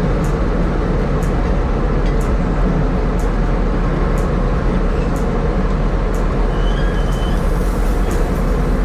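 Sugar beet piling machinery running steadily at a constant level, with a faint regular tick about once a second.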